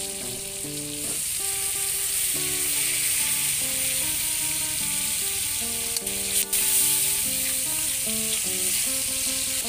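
Pork sizzling and frying in an aluminium wok just after a little water is poured in, a steady hiss throughout. Two sharp clicks come about six seconds in. Background music with held notes plays underneath.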